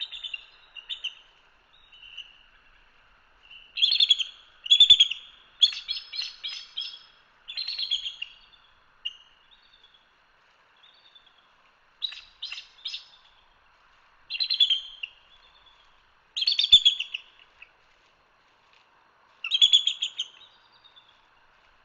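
Bald eagle chatter: high, thin squeaky calls in bursts every second or two, some as quick runs of separate notes, over a faint steady background hiss.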